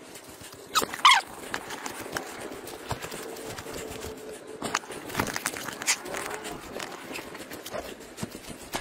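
Footsteps and rustling through dry grass and brush while climbing a steep slope, with a brief high-pitched whine from a small dog about a second in.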